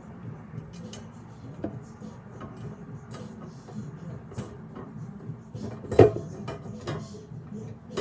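Small clicks and clinks of metal rack parts and screws being handled and screwed together, with one louder knock about six seconds in.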